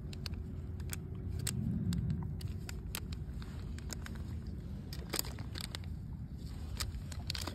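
Plastic glow-stick packet crinkling and clicking in the fingers as it is worked at to open it, over a steady low rumble.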